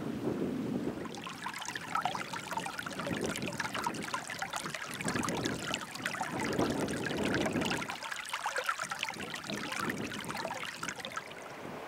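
A small hill burn trickling and splashing over stones, starting about a second in, with gusts of wind on the microphone.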